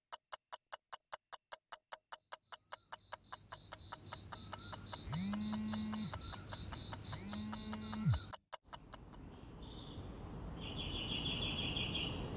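A clock ticking fast and evenly, about four ticks a second, with a high pulsing tone joining about two seconds in and two short sounds that rise and fall near the middle. The ticking cuts off after about eight seconds, giving way to a steady low background with a few bird chirps.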